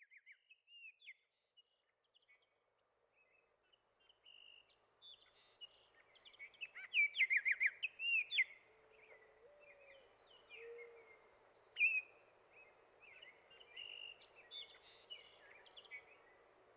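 Several birds chirping and twittering in short, high calls, busiest and loudest about seven to eight and a half seconds in, over a faint steady hiss.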